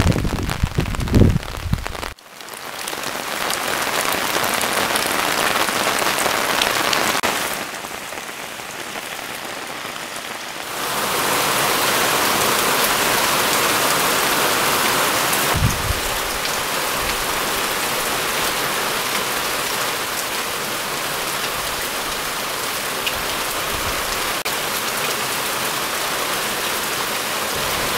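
Cloudburst: heavy rain pouring down as a steady hiss, its loudness stepping up and down a few times. A low rumble of thunder fills the first two seconds.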